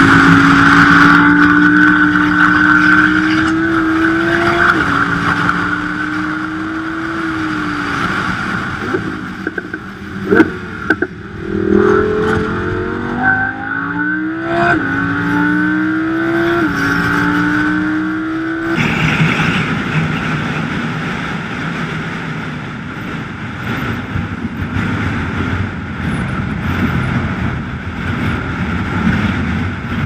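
Audi R8 prototype's V10 engine accelerating hard through the gears, its pitch climbing and dropping sharply at each upshift, with an easing off and downshifts in between. About two-thirds in, the engine note gives way to a steady rush of road and wind noise.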